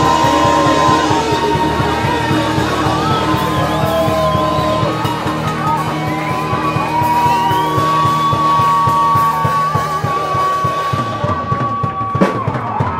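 Live rock band playing loud with drums, bass and guitar, a high melody line bending and then holding one long note for several seconds.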